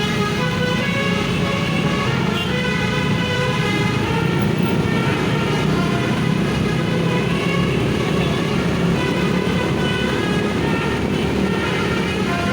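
Bus's basuri musical horn playing a melody of short, stepping notes over the steady low running of the bus engine.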